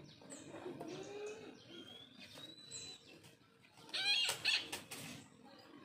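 Brahminy kite giving a loud, short call in two quick parts about four seconds in, over faint chirps and whistles of smaller birds.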